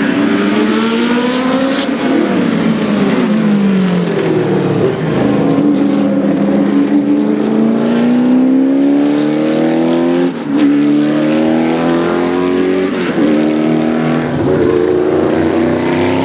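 Group C prototype race car engines at full throttle, rising in pitch through the gears with sharp drops at each upshift, several times over.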